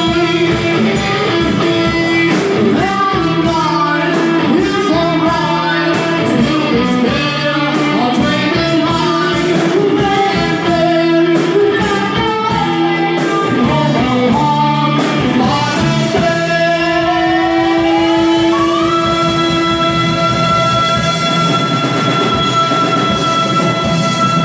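Rock band music with guitar and singing. About two-thirds of the way in, notes slide upward and then hold steady.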